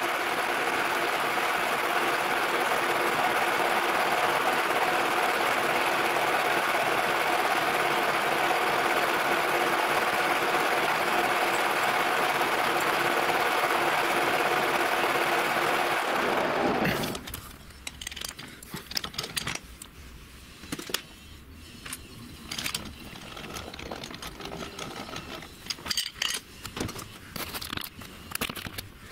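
Metal lathe running steadily with a hum of several steady tones, its chuck spinning a twist drill as a hand-held metal sprocket is fed onto the bit to drill a hole. About 16 seconds in, the lathe stops, leaving scattered clicks and knocks of metal parts being handled.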